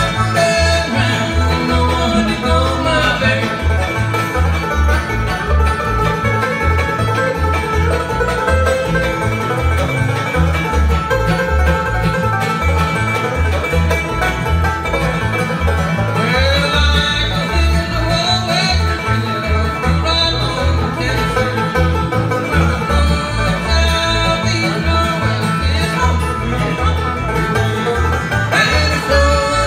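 Live bluegrass band playing an instrumental passage: banjo rolls over acoustic guitar and fiddle, with bass notes keeping a steady beat of about two a second.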